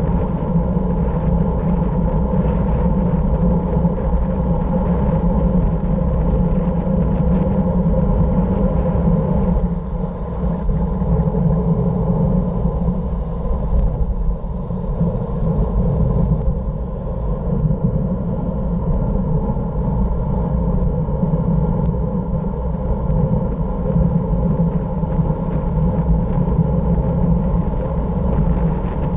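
Wind rushing over an action camera's microphone with tyre rumble on tarmac during a fast downhill road descent: a loud, steady low rumble that dips slightly a couple of times.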